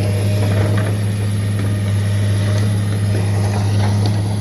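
Komatsu 200-class hydraulic excavator's diesel engine running steadily as the machine travels, a deep, even drone, with a few faint clicks over it.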